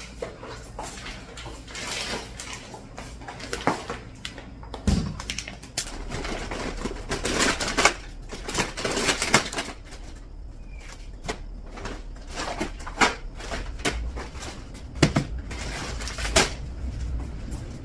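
Household objects being handled in a small kitchen: irregular clicks, knocks and light clatter as things are picked up and set down, with some rustling between them.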